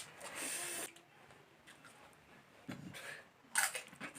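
Brief crunching and slurping of someone eating pani puri (golgappa), in short noisy spurts with quiet between them, opening with a sharp click.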